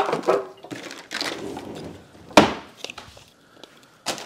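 Hard objects being knocked and handled, with a sharp thunk at the start and a louder one about two and a half seconds in, and lighter clatter between. Just before the end, the thin plastic sleeve over the grill starts to crinkle.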